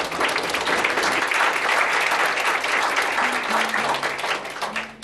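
An audience applauding: many people clapping at once, dying away near the end.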